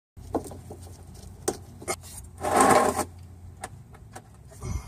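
A hooked pick tool working a plastic fuel-line quick-connector at the fuel tank: a few sharp clicks and a louder scraping noise lasting about half a second, about two and a half seconds in, over a steady low hum.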